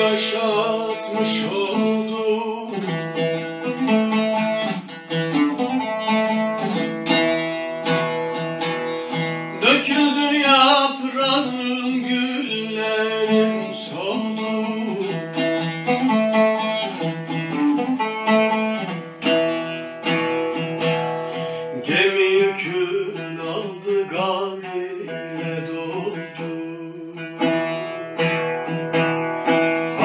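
Oud plucked with a plectrum, playing a Turkish folk (türkü) melody, with a man's singing voice in places.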